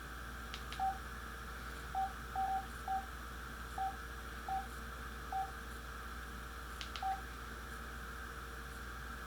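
Flip phone keypad beeping as buttons are pressed: about nine short beeps of one pitch at uneven spacing. A pair of faint clicks comes near the start and another near the end, over a steady background hum.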